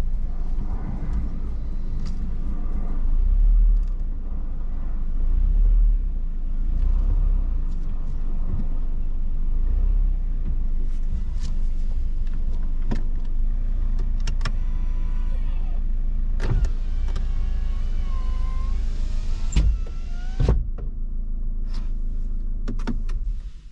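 Car running with a steady low rumble, with scattered clicks and knocks. Several wavering pitched sounds come in over the last third, and the rumble drops away at the very end.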